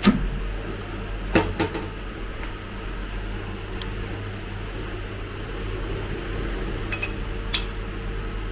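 A steady low mechanical hum, like a motor or fan running, with a few sharp clicks: two about a second and a half in and one near the end.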